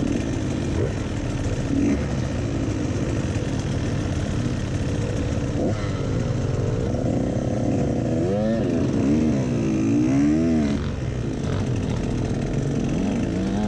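Dirt bike engine running as it is ridden off-road, its pitch swinging up and down several times in quick succession over a few seconds, about eight seconds in, as the throttle is worked.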